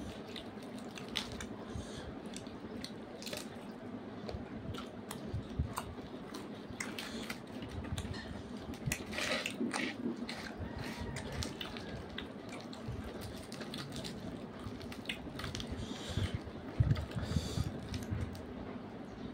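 Close-up eating sounds of people eating with their hands: wet smacking and chewing, with fingers tearing puri and squishing it through curry, heard as many small wet clicks. A few louder low thumps come near the end.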